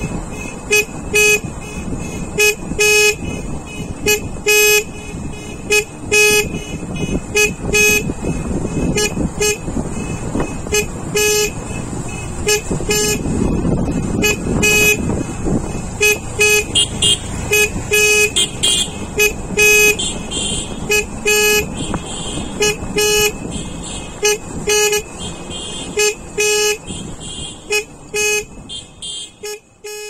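Repeated short vehicle-horn toots, one or two a second, over the steady rush of a motorcycle riding along a road. It all fades out near the end.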